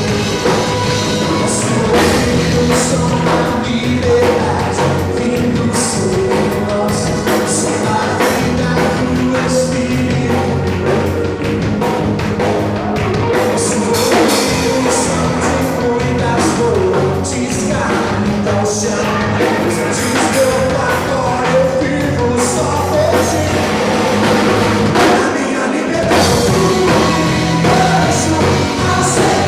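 Live worship rock band playing, with drum kit, guitars and bass, and sung vocals.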